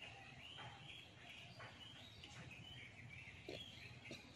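Faint birdsong: small birds chirping continuously in the background, with a few soft clicks.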